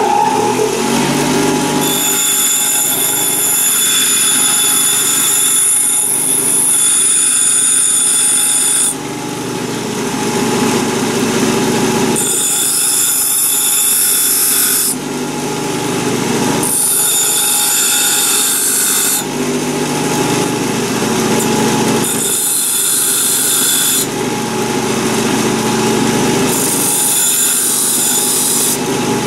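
Bench grinder running steadily while a steel Allen key is held against the corner of its wheel to grind a groove round it: a high grinding hiss in five passes, the first about seven seconds long and the rest two to three seconds, with the motor running on alone between them.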